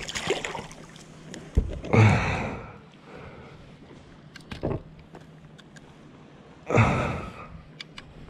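A small fish splashes as it drops back into the sea beside a kayak. A sharp knock follows, then two loud rushes of air, about two seconds and seven seconds in, with scattered light clicks between.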